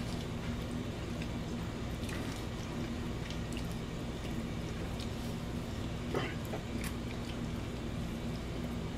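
Faint chewing and small mouth clicks from someone eating a buffalo chicken wing, over a steady low electrical hum. There is a slightly louder click about six seconds in.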